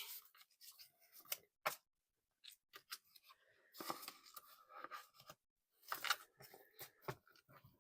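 Paper money and envelopes being handled: scattered soft rustles and clicks, busiest about four to five seconds in.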